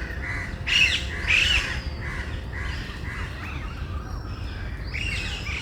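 Several birds calling in forest, a string of short harsh calls, the loudest about a second in, over a steady low rumble.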